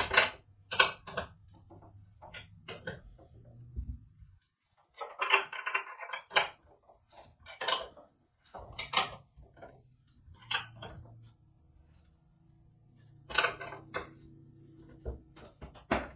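Irregular metallic clicks and clinks from a 15 mm wrench working the nut of a carriage bolt tight, with pauses between strokes.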